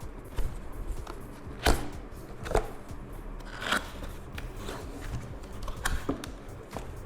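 Hands handling a keyboard and its packaging: scattered sharp taps, clicks and rustles at irregular moments, the loudest just under two seconds in.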